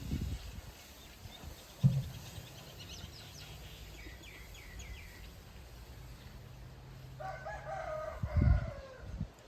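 A rooster crowing once near the end, a long call of about a second and a half, with small birds chirping around the middle and a few low thumps.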